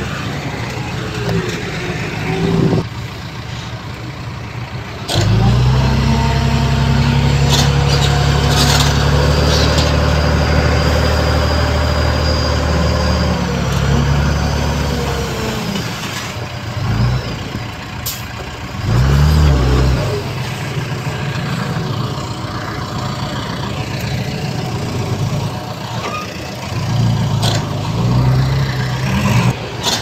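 Heavy diesel earth-moving machinery at work. One engine runs loud and steady from about five seconds in to about fifteen, then its speed rises and falls briefly a few times. A few short sharp noises cut in along the way.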